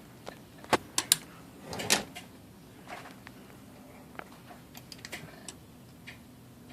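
Handling noise from inside an IBM Selectric typewriter while hands and a tool work at its trip latch plate to reach a loose screw. A few sharp clicks and knocks come in the first two seconds, then fainter scattered ticks.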